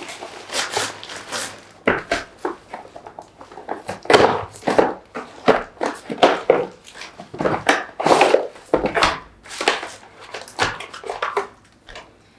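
Plastic courier mailer bag and bubble wrap crinkling and tearing as a parcel is ripped open and a box pulled out, in irregular rustles and crackles.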